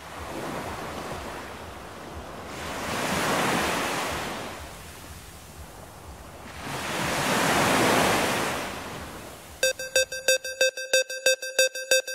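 Ocean surf washing onto a beach in two slow swells, each rising and falling over a few seconds. About nine and a half seconds in, an electronic music pattern of quick repeated synth notes starts, about four a second.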